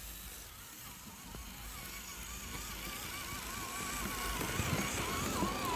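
Electric motor and gearbox of a radio-controlled model vehicle whining as it drives, the pitch wavering up and down with the throttle. The whine starts about a second in and grows stronger towards the end.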